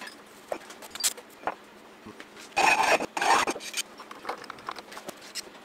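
A 10 mm mild steel plate being handled and taken out of the milling machine vice, with light clinks and knocks, and a loud scraping rub of metal on metal for about a second, starting about two and a half seconds in.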